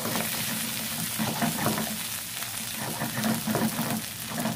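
Shrimp and pesto sauce sizzling in olive oil in a frying pan, with a wooden spatula stirring and scraping across the pan.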